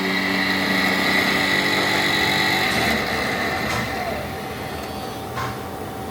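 Live-tooling drive in the turret of a Hardinge GS-51 CNC lathe spinning with a steady high whine, which drops away about three seconds in, leaving a lower steady machine hum and a couple of faint clicks.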